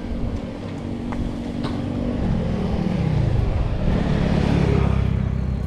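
A motor vehicle's engine running on the road, its pitch sliding down partway through and then picking up again as it grows louder.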